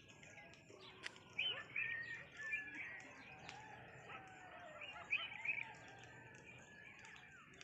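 Several birds chirping and whistling over each other, a morning chorus of short repeated chirps mixed with longer held whistling notes. A single sharp click sounds about a second in.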